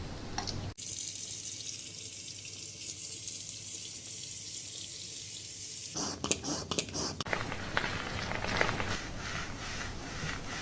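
Water spraying at a hair-washing shampoo basin: a steady hiss, then, about six seconds in, a few clicks and uneven splashing.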